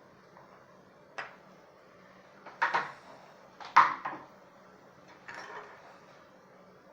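Small hard objects clicking and clattering on a work surface as tools and parts are handled: four separate knocks, the loudest about four seconds in.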